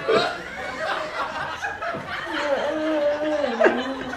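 People laughing and snickering, then one voice holds a long, steady vocal note in the second half that drops a little in pitch before it ends.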